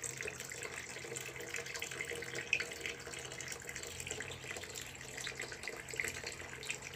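Steady background hiss with a faint low hum and scattered light crackles.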